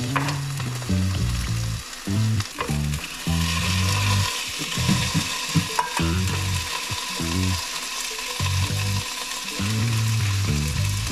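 Food sizzling as it fries in a pan, a steady hiss with a few sharp clicks, over background music with a stepping bass line.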